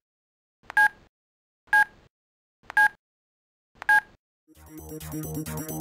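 Countdown-leader beeps: four short electronic beeps, one a second. Electronic music with a steady pulsing beat fades in about four and a half seconds in.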